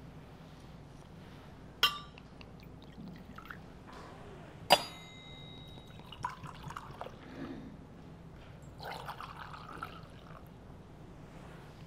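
Altar vessels being handled at a Mass's preparation of the gifts. Two sharp clinks come about two and five seconds in, the second ringing briefly, followed by faint handling sounds.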